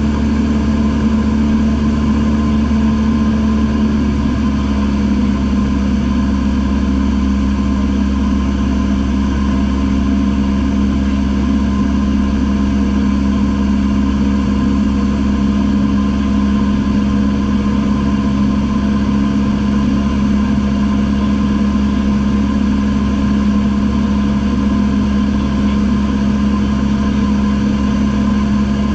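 Piston engine and propeller of a single-engine light aircraft in cruise, heard inside the cockpit: a loud, steady drone with a strong low hum that holds constant throughout.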